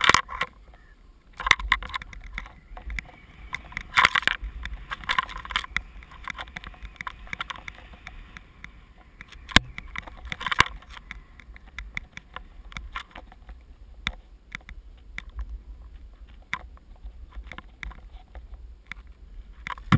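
Riding fast through deep powder snow. Irregular rushing swishes of snow spray come with each turn over a steady low wind rumble on the camera's microphone, with a sharp click about halfway through.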